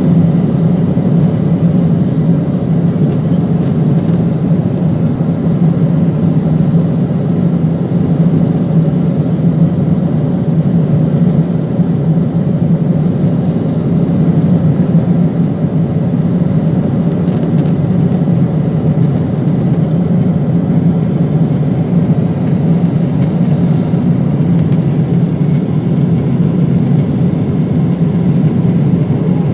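Boeing 777 airliner in cruise, heard inside the cabin: a steady, low drone of engines and rushing air that stays even throughout.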